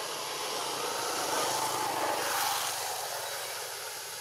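Distant engine passing: a steady hiss with a faint low hum that swells to its loudest about halfway through, then fades.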